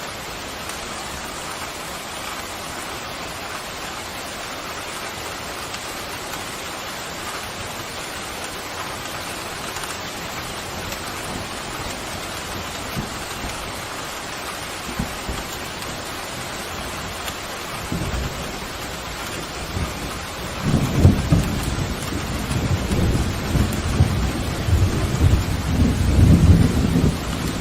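Pouring rain hissing steadily; about two-thirds of the way through, a long roll of thunder rumbles in and grows louder until near the end.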